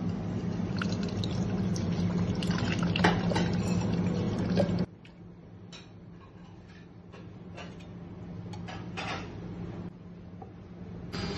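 Juice running and dripping from a lever-arm citrus press into a plastic jug over a steady low hum with small clicks. About five seconds in the sound drops abruptly, giving way to oil trickling from a bottle into a glass beaker and a few light taps.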